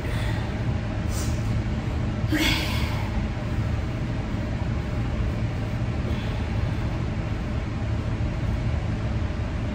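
A steady low drone with no change in level, and a short breathy hiss about two and a half seconds in.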